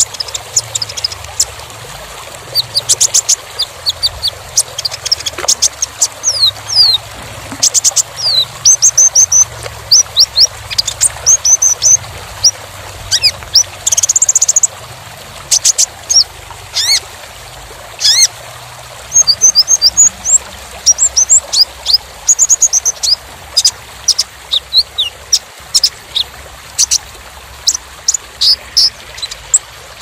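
Van Hasselt's sunbird (kolibri ninja) singing: long, tightly packed runs of thin, high chirps and short sweeping whistles, over a steady faint hiss.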